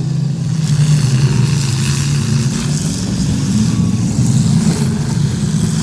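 Several demolition derby cars' engines revving and running together as the cars drive the arena at the start of a heat, their pitches rising and falling.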